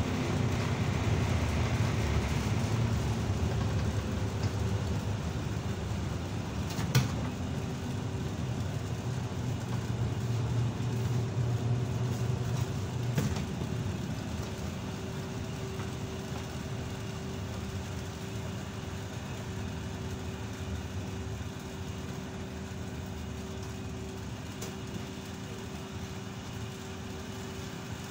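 Running noise of a ZiU-682G trolleybus on the move. A steady rumble is joined by a steady hum from about a third of the way in, with two sharp knocks. The rumble eases off and the noise grows quieter from about halfway through.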